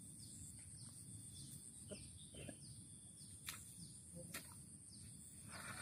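Near silence: faint rice-field ambience, with a steady high insect-like hum and faint short chirps repeating about twice a second, plus a few soft clicks.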